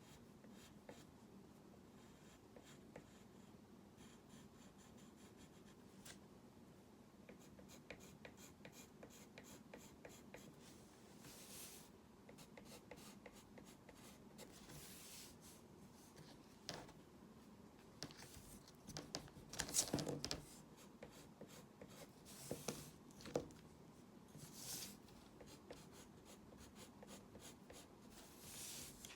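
Faint scratching and tapping of a drawing tool working on a surface as a picture is sketched: short strokes and small ticks scattered irregularly, with a louder run of strokes about two-thirds of the way in.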